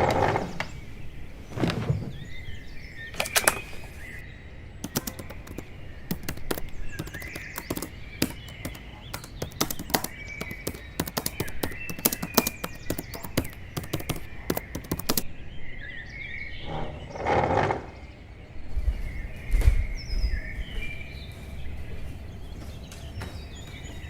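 Birds chirping, over a fast, irregular run of sharp clicks or knocks lasting about ten seconds in the middle, with a few louder short bursts near the start and again about two-thirds of the way through.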